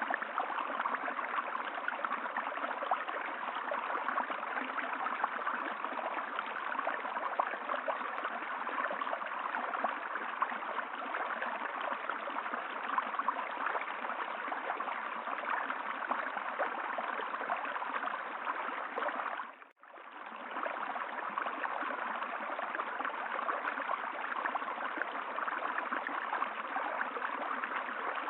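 Steady running water. About twenty seconds in it cuts out for a moment and fades back in.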